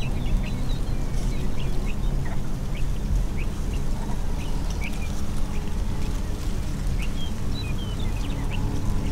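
A flock of birds calling in flight, with many short high calls scattered throughout, over a steady low rumble.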